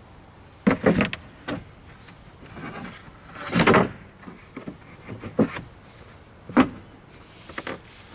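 Wooden board being fitted into a car's carpeted boot: a few knocks, then a louder scraping slide about three and a half seconds in as it settles snugly into place, followed by light knocks as it is pressed down.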